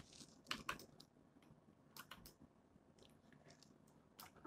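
A few faint clicks of computer keyboard keys being pressed: two about half a second in, two around two seconds in, and one near the end, with near silence between.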